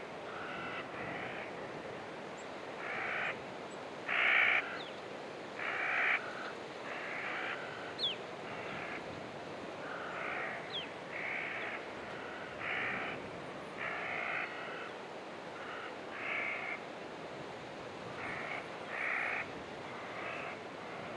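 Crow-like birds cawing repeatedly, short harsh calls about once a second, some in pairs, over a steady background hiss. A few faint thin chirps come through now and then.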